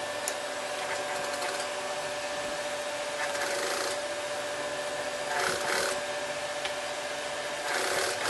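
Industrial sewing machine topstitching denim: its motor hums steadily, with three short bursts of rasping noise from stitching and handling the heavy fabric.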